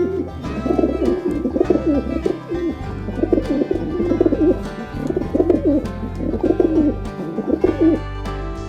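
Pigeon cooing in repeated wavering phrases, over steady background music.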